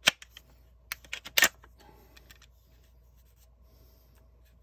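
A CZ Scorpion EVO 3 being racked. There is a sharp metallic clack of the charging handle and bolt right at the start, then a quick run of clacks about a second in, the loudest about a second and a half in.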